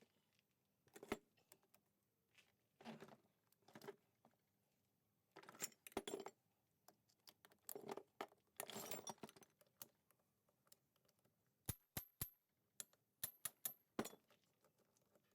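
Faint, scattered metallic clicks and clinks of hand tools and small engine parts being handled during engine disassembly, with a few short scraping sounds. A quick run of sharp, ringing clicks comes near the end.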